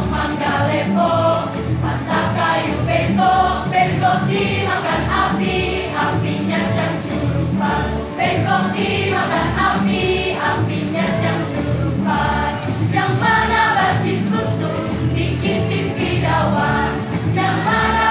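High-school choir, mostly girls' voices, singing together through microphones, with electronic keyboard accompaniment underneath.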